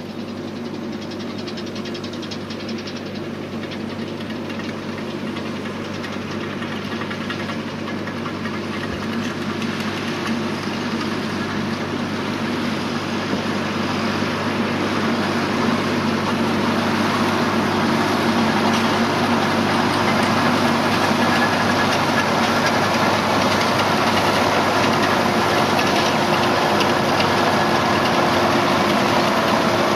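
Fendt 415 Vario tractor's four-cylinder diesel engine running steadily under load while towing a Krone Comprima V 150 XC round baler that is picking up and baling cut lucerne. It grows steadily louder as the rig approaches.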